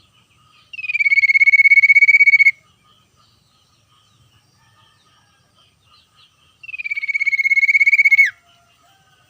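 Common iora giving two long trilled whistles, each gliding down slightly at the start and then holding one fast-pulsing note for nearly two seconds before dropping off. The first comes about a second in and the second about seven seconds in. Faint chirps of other birds sound between them.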